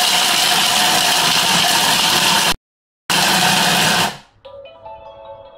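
Thermomix TM5 food processor running at top speed (speed 10), its blades grating squares of dark chocolate: a loud, steady whirr. It drops out completely for half a second about two and a half seconds in, resumes, and stops about four seconds in, leaving faint music with steady tones near the end.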